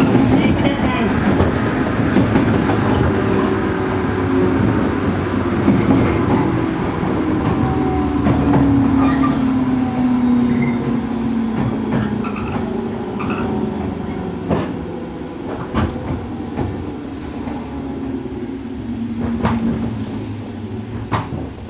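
JR Kyushu 103 series electric train running inside the car, its MT55 traction motors whining with a pitch that falls steadily as the train slows into a station. A few sharp clicks from the wheels come over rail joints near the end.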